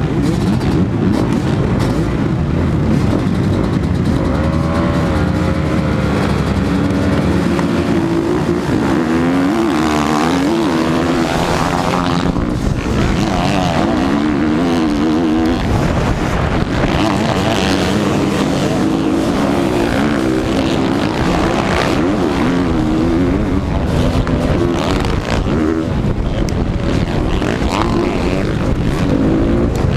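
Motocross dirt bike engines racing, several at once, their pitch repeatedly climbing and dropping as the riders throttle up and shift.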